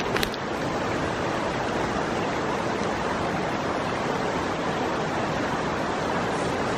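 Steady rushing of a mountain river, an even wash of water noise, with a sharp click or two right at the start.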